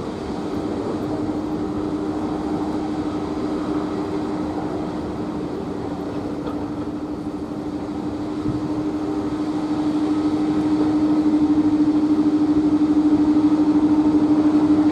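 Airbus A330-300 twin jet engines running as the airliner moves on the runway: a steady whine over a rushing noise, getting louder from about ten seconds in.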